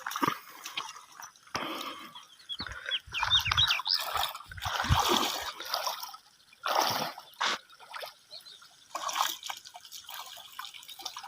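Shallow water splashing and trickling in irregular bursts as it is disturbed during hand fishing in a ditch.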